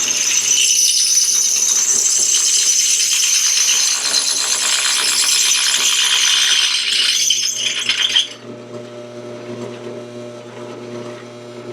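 Drill press boring through a hard steel bracket: a loud, high metallic screech and rattle of the bit cutting until about eight seconds in, then the bit clears and the motor runs on with a steady hum.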